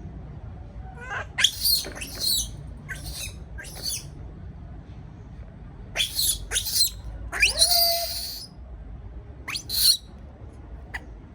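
Baby monkey giving a string of short, shrill, high-pitched cries, with one longer cry about three-quarters of the way through: the distress calls of an infant monkey afraid at being left alone.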